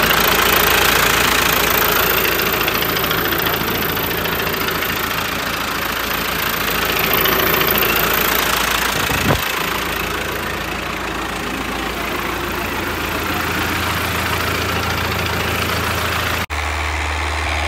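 New Holland 850 tractor's diesel engine running steadily at idle, heard up close beside the engine block and gearbox, with a single short click about nine seconds in.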